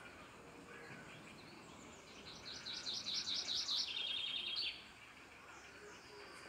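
A songbird singing one fast, trilled song phrase about two and a half seconds long, its rapid notes stepping down in pitch and ending in a quicker trill, over faint outdoor background noise.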